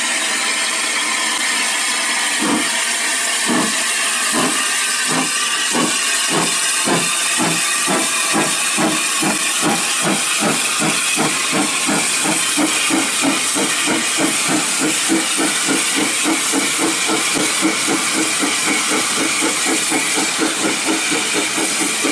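Hunslet Austerity 0-6-0 saddle tank steam locomotive pulling away with its train: evenly spaced exhaust chuffs that quicken steadily, from about one a second to several a second, over a constant hiss of steam.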